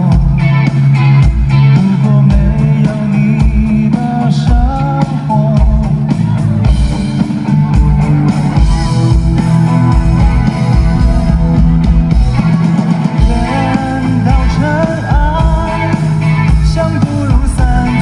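Live band playing a rock-style passage: electric guitar over bass, drums and keyboard, loud and continuous.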